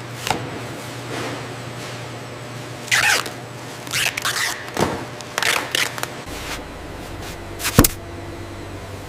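A run of irregular clacks and rattles over a steady low hum, with one sharp knock near the end. The hum drops lower about six seconds in.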